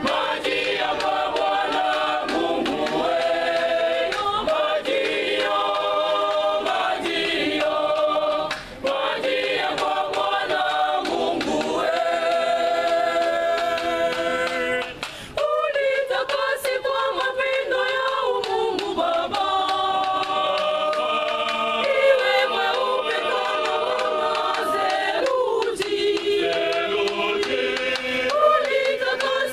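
Choir singing a hymn, with short breaks between phrases about nine and fifteen seconds in.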